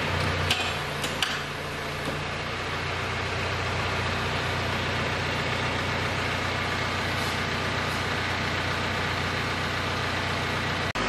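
A steady mechanical hum, with a few sharp clicks about half a second to a second in.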